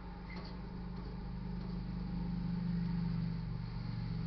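A vehicle engine running with a steady low hum, growing louder until about three seconds in, then easing slightly.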